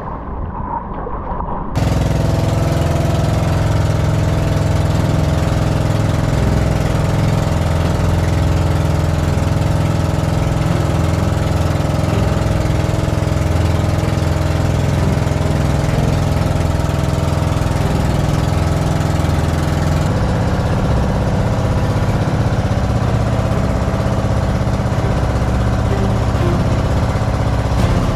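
A small boat engine running steadily at an even speed. It cuts in abruptly about two seconds in, after fading music.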